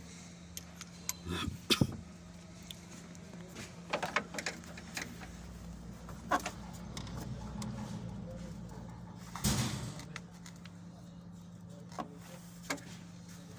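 Irregular metallic clanks and clicks of tools and engine parts being handled during a timing chain repair, over a steady low hum.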